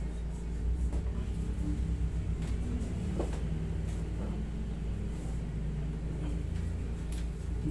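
Steady low mechanical hum of a room air conditioner running, with a few faint taps over it.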